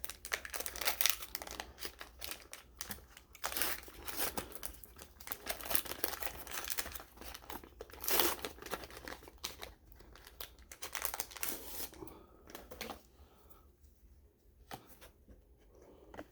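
Wrapper of a sealed baseball card pack being torn open and crinkled in the hands: dense, irregular crackling for about twelve seconds, then only a few quieter rustles near the end.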